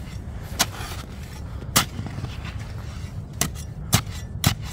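Long-handled steel ice chopper striking down into hard-packed, frozen snow, about six sharp chopping impacts at uneven intervals. The snow has sat and hardened, so it has to be broken up. A steady low rumble runs underneath.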